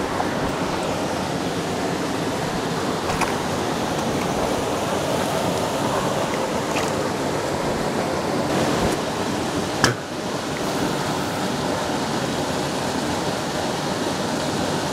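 Steady rush of water pouring through a spillway, with a sharp click about ten seconds in.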